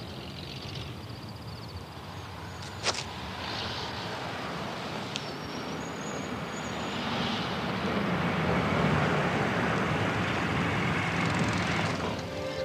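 Pickup truck pulling away at night, its engine and tyre noise building through the second half and staying loud near the end. A single sharp click comes about three seconds in.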